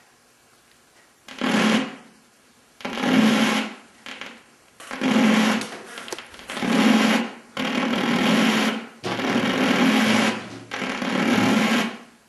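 Television speaker giving seven bursts of static hiss with a low buzz, each about a second long, coming and going while tuned to a weak, snowy analogue TV signal.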